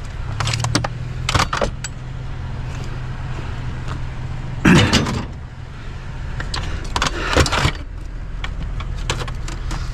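A vehicle engine idles steadily under knocks and rattles as a part is worked out of a piece of scrap; the loudest knock comes about five seconds in.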